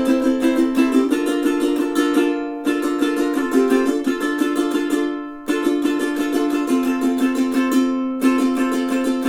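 Snail BHC-5T tenor ukulele with a solid spruce top, strummed in a quick steady rhythm. The chords change several times, and there are two short breaks where a chord rings down before the strumming starts again.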